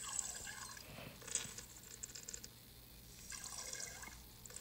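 Water trickling and dripping from a small plastic toy doll's ears into a bowl of water, the doll's water trick, in about four short spells.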